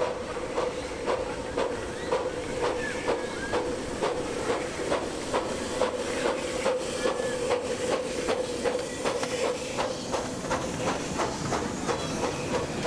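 Miniature-railway steam locomotive passing close by, its exhaust beating in an even rhythm of about two a second, with steam hissing.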